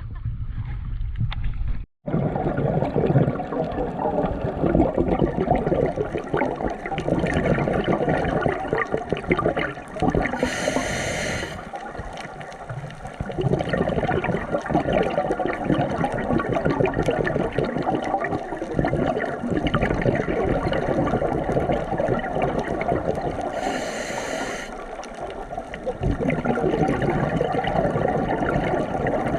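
Water gurgling and churning, with a brief hiss about ten seconds in and again near the end.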